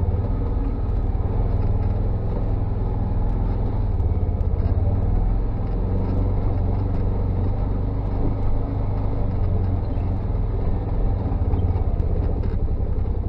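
UTV engine and drivetrain running steadily while the machine is driven, an even low drone that holds throughout.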